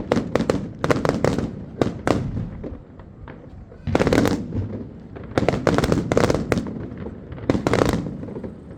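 New Year's Eve fireworks going off: firecrackers and rockets crackling and banging in rapid clusters, with brief lulls about three seconds in and again near the end.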